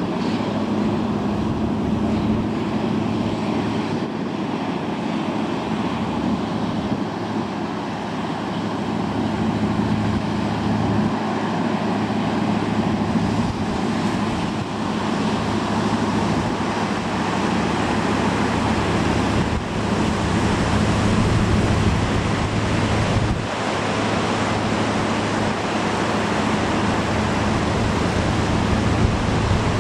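Batam Fast high-speed catamaran ferry Asianfast 1 passing at speed, a steady low engine drone under the rush of its wake and waves breaking on the rocks, with wind.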